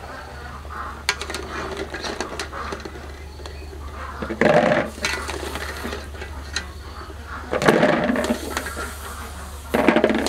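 Wire-mesh strainer clinking and scraping against an aluminium pot while scooping boiled eggs out of hot water. There are three louder rushes, about four, eight and ten seconds in, as scoops of eggs are tipped into a plastic bowl of water.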